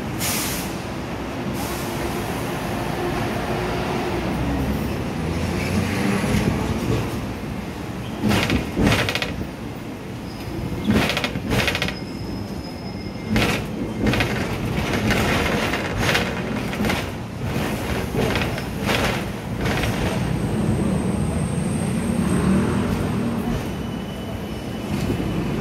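Hong Kong double-decker tram running along its street rails, heard from the upper deck: a steady rumble and rattle, broken by irregular clacks and knocks from the wheels and body, most of them in the middle stretch.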